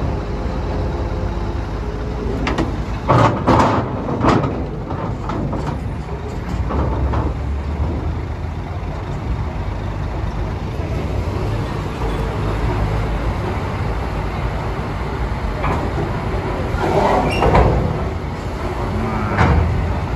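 Heavy diesel trucks running with a steady low rumble as they move through a ferry loading area. A few short loud noises stand out about three to four seconds in and again around seventeen seconds in.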